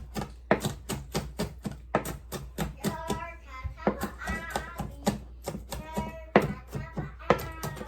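Kitchen knife chopping on a cutting board in quick, even strokes, about four to six knocks a second.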